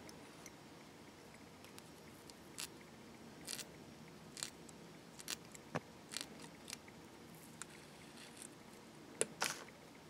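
Tying thread being whip-finished by hand at the head of a foam dry fly in a vise: faint, scattered light clicks and ticks, a few a second at most, with a couple of sharper ticks near the end.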